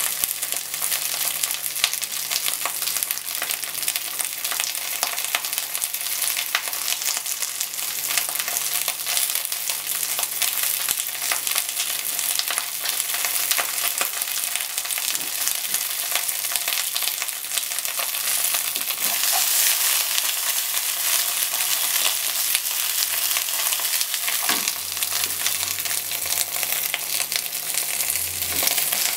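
Cabbage rolls frying in a frying pan over a gas flame: a steady sizzle with scattered small crackles.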